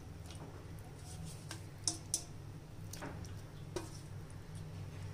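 A few light clicks and soft taps as pieces of fish are laid into a clay pot of curry gravy, over a steady low hum.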